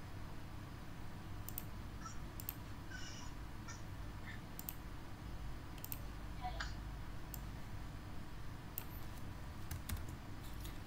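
A few faint, irregular computer mouse clicks and keyboard taps over a low steady hum.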